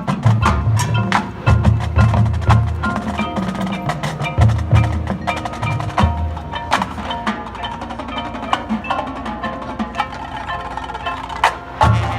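High school marching band percussion playing: groups of heavy low drum hits over many sharp clicks and ringing mallet-keyboard notes. The low hits drop out about halfway through, leaving lighter clicking and pitched notes, and come back near the end.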